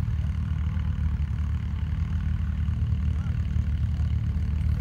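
A vehicle engine idling, with a steady low rumble throughout.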